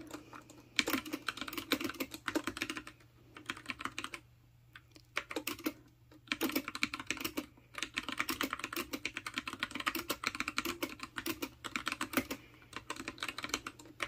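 Typing at a steady pace on the Freewrite smart typewriter's mechanical keyboard, a quick run of key clacks broken by a couple of short pauses about four and six seconds in.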